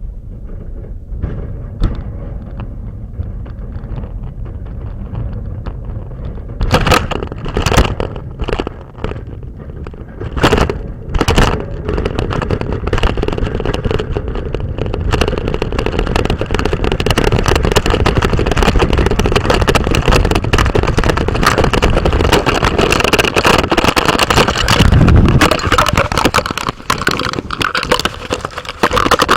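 Car driving on a snow-covered road: a low rumble of engine and road noise, with crunching and scraping from the tyres on snow that starts with a few loud crackles about seven seconds in and then becomes a dense, steady crunch.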